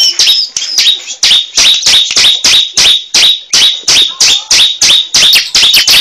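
A caged ciblek (prinia) calling loudly in a fast, even run of sharp, high chip notes, about four a second, each note sweeping downward.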